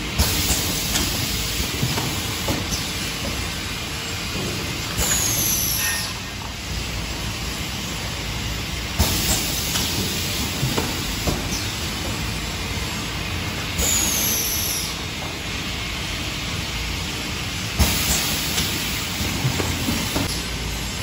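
Pneumatic piston filling and capping machine for rectangular tubs running: steady machine noise with a hiss of air every four to five seconds, two of them ending in a falling whistle, and scattered clacks from the moving mechanism.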